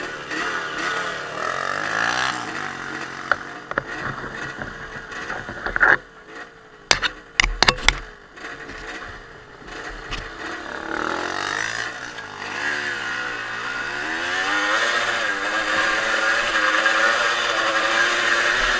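Off-road trail motorcycle engine revving up and down as it rides, with a cluster of sharp knocks a little past the middle.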